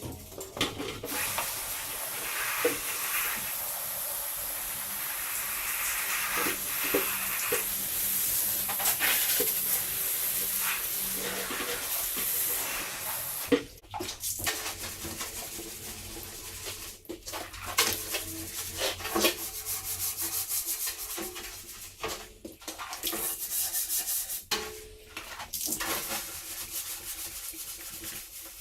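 Surfaces in a dairy milk house being scrubbed down: a steady rasping hiss for about the first half, then stop-start scrubbing with scattered knocks.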